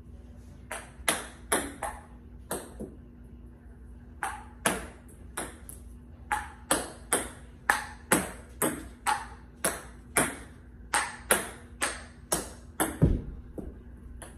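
Table tennis ball clicking off paddles and the table during play, a sharp ringing click every half second or so in short runs with brief pauses. A heavier, deeper thump comes near the end.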